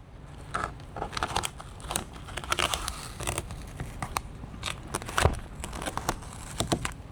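Adhesive vinyl film being handled and peeled by hand, crinkling and crackling in irregular short crackles as the sheet and its backing are moved into position.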